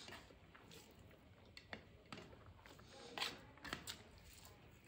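Quiet eating sounds: fingers squishing and mixing rice on a steel plate, and chewing, with a few soft clicks and smacks, the loudest about three seconds in.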